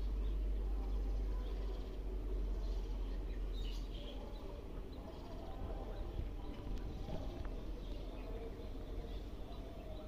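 Outdoor riverside ambience: a steady low rumble of wind on the phone's microphone, with faint scattered bird chirps.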